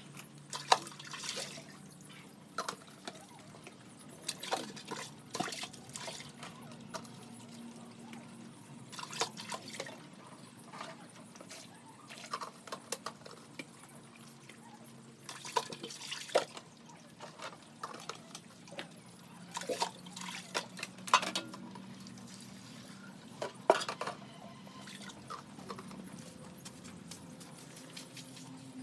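Water splashing and dripping in irregular short bursts, over a steady low hum.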